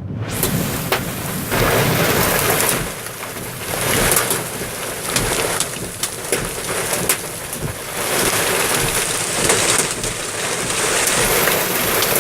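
Heavy rain pouring down in a thunderstorm, a dense steady hiss that swells and eases, with many sharp taps of drops striking close by.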